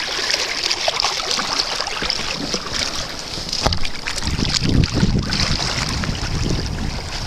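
Sea water hissing and lapping against a fishing kayak's hull, with wind buffeting the microphone in gusts that grow stronger about four seconds in.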